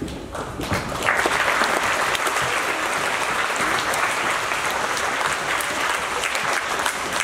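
Audience in a hall applauding, the clapping building quickly about a second in and then holding steady.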